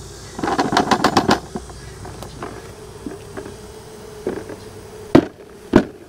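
A wooden hive frame knocked sharply against a plastic bucket to shake honey bees off it: a quick run of about eight knocks near the start, then two louder single knocks just over half a second apart near the end. A steady hum of honey bees runs underneath.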